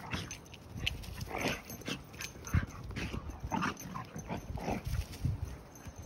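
Two dogs play-fighting, making short, irregular vocal outbursts in quick succession.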